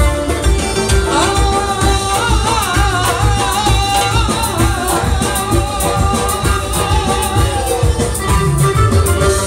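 Live band playing Bukharian wedding music on electric guitar, keyboard and drums, with a steady beat. A wavering lead melody, singing or a lead instrument, comes in about a second in and runs until near the end.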